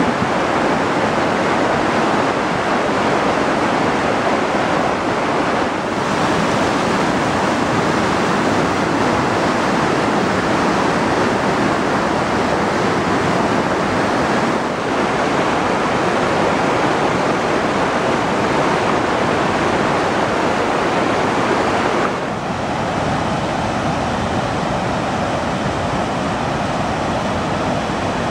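Flash-flood water rushing and churning over boulders in a normally dry stream bed, a steady heavy rush of water. It drops a little in level about 22 seconds in, where the flood is seen from farther off.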